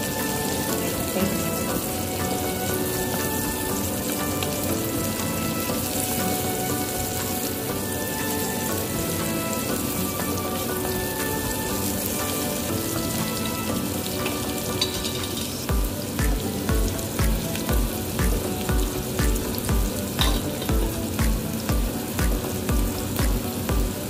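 Chopped onions sizzling steadily as they fry in oil, stirred now and then with a wooden spatula. Background music plays under it, with a steady low beat coming in about two-thirds of the way through.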